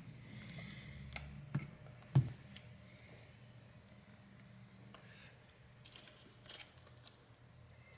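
Small hand tools handled at close range during a phone repair: a few light clicks and taps, the loudest about two seconds in, then faint scratchy ticks, over a low steady hum.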